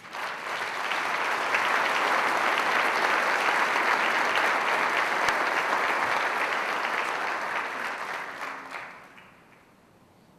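A large banquet audience applauding. It swells within the first second, holds steady, then dies away about nine seconds in.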